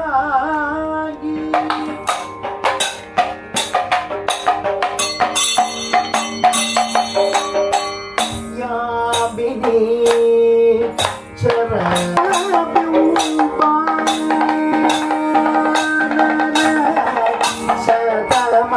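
Kathakali accompaniment music: a singing voice on held, wavering notes over fast drum strokes and cymbal strikes.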